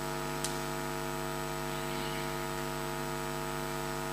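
Steady electrical mains hum with a buzzy stack of overtones, and a faint click about half a second in.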